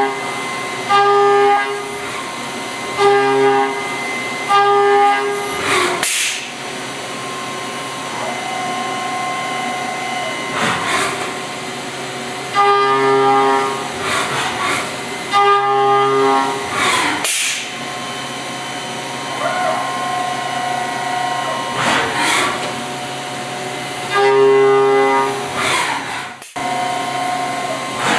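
5-axis CNC mill cutting the polygon base of a metal chess piece: the end mill sings a pitched tone in bursts of about a second, several in a row as it passes each flat face. A brief rising whoosh comes every five or six seconds between runs of cuts.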